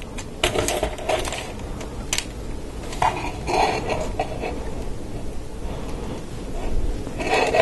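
LEGO Technic plastic parts clicking and rattling as an axle is pushed through lift arms and the model is handled: a scattered series of small sharp clicks and knocks, busiest about a second in and again three to four seconds in.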